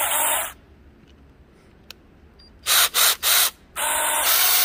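Battery-powered mini chainsaws running with no load, the chain whirring around the bar in trigger pulls: a half-second burst at the start, three quick blips about three seconds in, then a longer run near the end.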